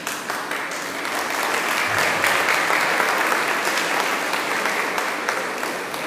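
Audience applauding: the clapping breaks out suddenly, swells for a few seconds, then dies away.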